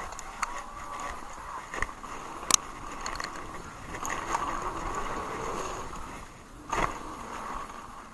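Haibike Sduro electric mountain bike running fast down a dirt forest trail: steady tyre noise with the bike rattling and clicking over bumps. A sharp knock comes about two and a half seconds in and a heavier thump near seven seconds.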